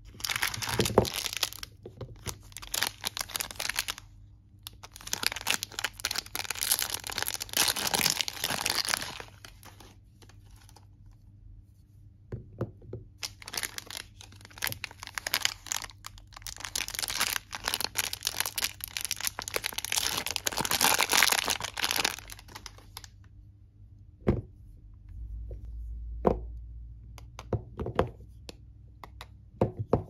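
Plastic soap-bar wrapper being crinkled and torn open by hand, in three long stretches of crackling and tearing. Near the end come a few separate sharp taps.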